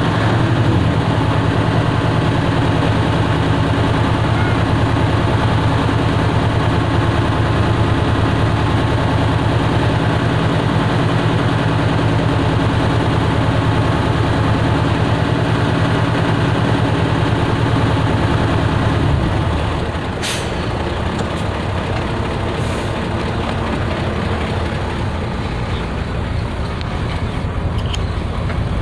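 Heavy engine running steadily with a deep drone. About nineteen seconds in it drops lower and quieter, and a couple of brief clicks follow.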